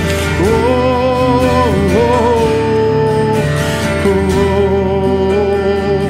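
A man sings long notes that slide up into each pitch, over strummed acoustic guitar and piano chords: a live worship song.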